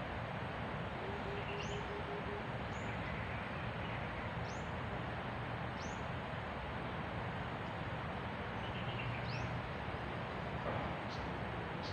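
Forest ambience: a steady hiss of background noise, with a bird giving short, high, rising chirps about once a second. A brief run of low, evenly spaced notes comes about a second in.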